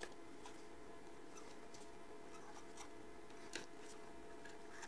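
A few faint clicks and light scraping of a screwdriver turning the screws in the back of a steel three-jaw lathe chuck, the clearest click about three and a half seconds in.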